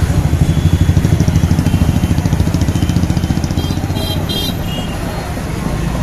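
A vehicle engine running close by, with a rapid low pulsing, loudest about a second in and fading away over the next few seconds.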